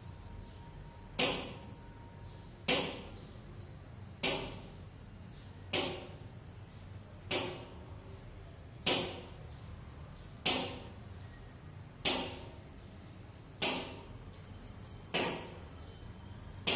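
Eleven sharp taps at an even pace of about one every second and a half, over a faint steady hum. The taps keep the beat for the pupils to repeat each sound and word in turn.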